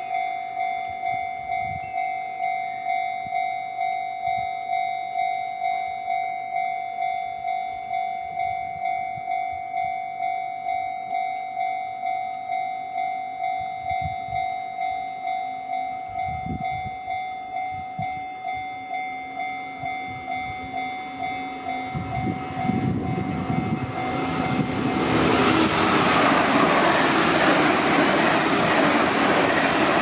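Japanese level-crossing warning bell ringing in even, steadily repeated tones. About 22 seconds in, an approaching train's rumble builds. From about 25 seconds, a passing JR electric train's loud wheel and rail noise drowns out the bell.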